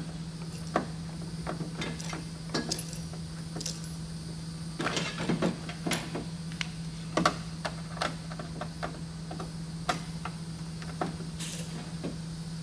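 Small clicks, taps and scrapes of a thin sheet-metal pipe cover panel being positioned and a small screw started by hand with a screwdriver, with a longer scrape about five seconds in. A steady low hum sits underneath.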